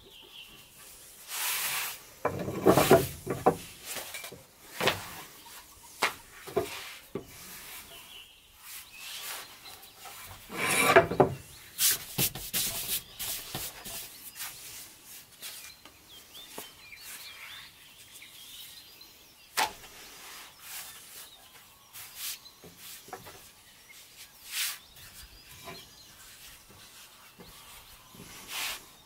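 Wooden rolling pin rolling and rubbing over a sheet of pasta dough on a stone slab, with knocks and handling noise from the pin. The loudest stretches come about two to three seconds in and again about eleven seconds in, with lighter rubbing and short knocks between.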